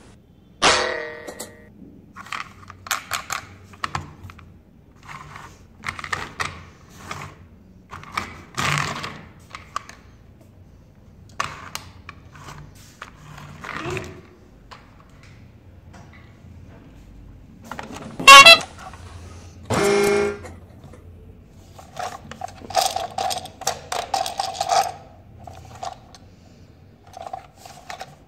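Hard plastic toy trains being handled, with scattered clicks and knocks of plastic. Two short, loud horn-like toots come about two-thirds of the way in.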